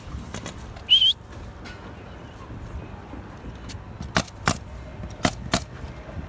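Pneumatic roofing nailers firing into asphalt shingles: sharp snaps, the loudest in two quick pairs a third of a second apart, with fainter ones between. A brief, high, warbling chirp or whistle about a second in is the loudest sound.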